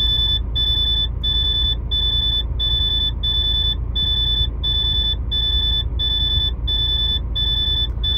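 Truck cab warning buzzer beeping steadily and insistently, about three high beeps every two seconds, over a low steady rumble. It is a dashboard fault warning, sounding while the truck shows a too-high soot level in the particulate filter.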